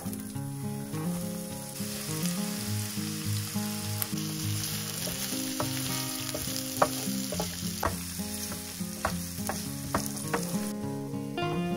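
Chopped onion sizzling in hot olive oil and butter in a nonstick frying pan, the sizzle swelling about two seconds in. From about four seconds in, a wooden spatula stirs it with scattered taps and scrapes against the pan.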